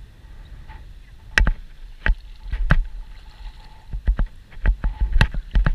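Shallow water splashing and sloshing in a string of sharp, irregular splashes over a low wash of moving water.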